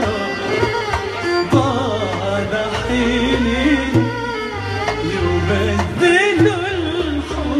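A woman singing an Arabic song into a microphone, her melody wavering and ornamented with vibrato. Behind her are hand-drum beats and sustained bass notes.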